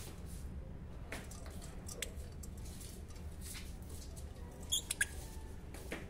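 Peach-faced lovebirds giving a few short, high chirps, loudest in a quick cluster about five seconds in, with scattered soft clicks between them.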